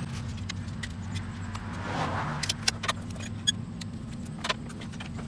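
Light clicks and taps of a tape measure and pencil being handled while marking a board at a miter saw, over a steady low hum.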